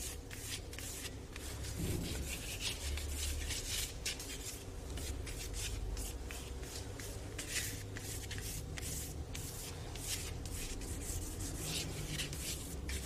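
A drawing tool scratching across paper in a quick, irregular run of short strokes while a sketch is drawn by hand.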